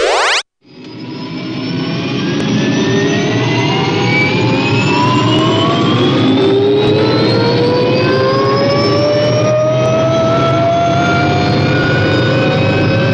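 Jet-engine sound effect standing in for a rocket taking off. A steady rush fades in about half a second in, carrying whining tones that climb slowly in pitch.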